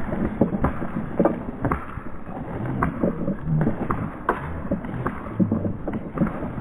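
Footsteps at a steady walking pace, about two a second.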